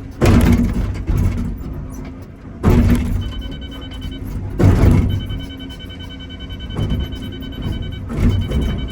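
Excavator digging in solid shelf rock: three heavy impacts of the bucket striking rock, about two seconds apart, over the running engine and a steady high hydraulic whine that comes and goes.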